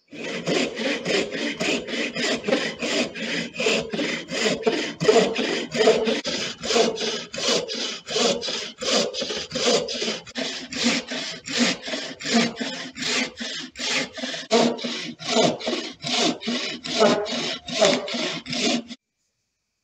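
Hand sawing through a block of wood with a long-bladed frame saw: steady back-and-forth rasping strokes, about two a second, that stop abruptly near the end.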